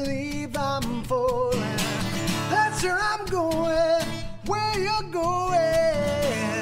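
Background music: a song with guitar and a sung melody line.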